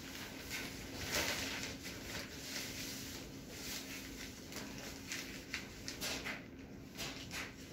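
Thin plastic sheeting crinkling and rustling in irregular bursts as it is handled and pressed up against a ceiling. A faint steady hum runs underneath.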